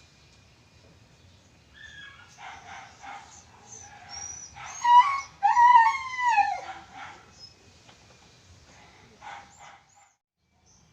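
A dog whining and howling: drawn-out calls that bend up and down in pitch, starting about two seconds in and loudest a little past the middle, with a couple of short yelps near the end.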